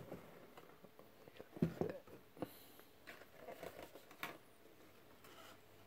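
Faint handling noises, a few light clicks and taps, as a vinyl Funko Pop figure and its cardboard box are handled and the figure is set down upright on a shelf.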